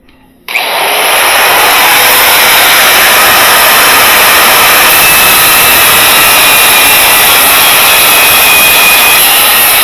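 Angle grinder starting up about half a second in and cutting into the steel shell of a hermetic refrigeration compressor. A loud, steady, high whine with grinding noise as the disc bites the metal.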